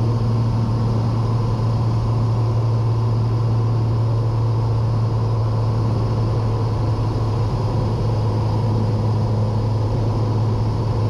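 Cessna 182's piston engine and propeller droning steadily in the cabin on approach, a low even hum with wind and airframe noise over it.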